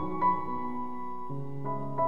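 Slow, soft background piano music: a few notes struck and held, each ringing on into the next.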